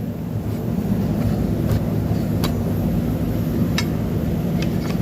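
A steady low mechanical hum, with a few scattered light metallic clicks as a cast iron piston ring is worked over the piston into its groove.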